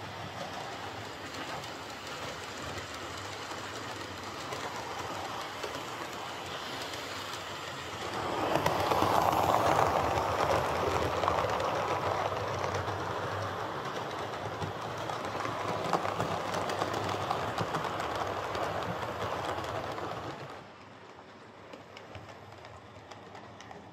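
Hornby OO gauge King class model steam locomotive running smoothly on the track, a steady whir of the motor with the rumble of wheels on rail. It gets louder about a third of the way in and drops away sharply near the end.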